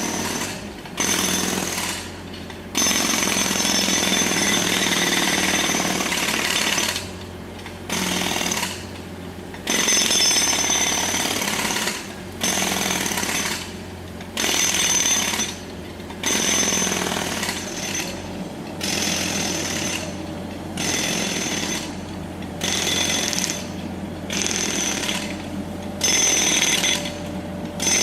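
Pneumatic road drill (jackhammer) hammering into a road surface in repeated bursts of one to several seconds, each stopping briefly before the next. A steady low hum carries on underneath, through the pauses.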